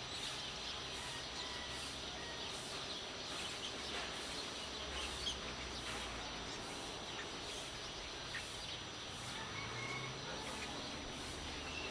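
Early-morning village ambience: a steady hiss of background noise with scattered faint bird chirps and calls, over a low hum.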